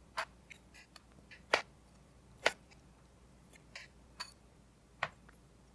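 Knife cutting the ends off kiwis, the blade knocking down sharply about six times at uneven intervals, loudest about one and a half and two and a half seconds in.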